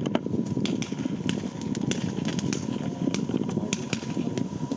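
Blackboxx 'Cascade' category F2 fireworks battery firing: a run of irregular sharp cracks over a steady low rumble.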